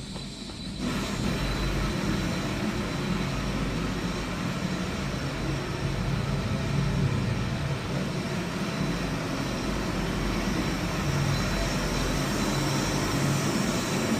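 Gas-fired boiler burner running at about a 30% firing rate in manual operation: a steady rush of flame and combustion blower with a low rumble, kind of loud for 30%.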